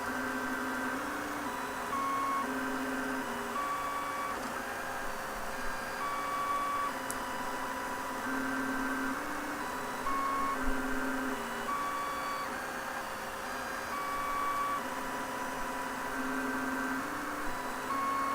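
MendelMax 1.5 3D printer running, its stepper motors whining in steady tones that jump to a new pitch every half second to a second as the axes change speed and direction.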